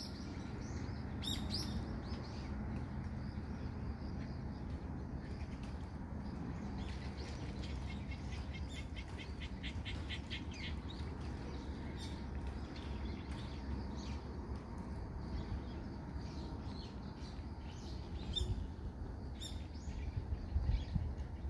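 Small birds chirping in trees, short scattered calls with a quick run of repeated notes about nine seconds in, over a steady low city rumble.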